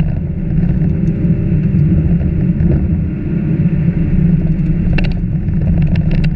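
Car engine running steadily with gravel road and tyre noise, heard from inside the cabin while driving on a gravel road. A few sharp clicks come about five seconds in and again near the end.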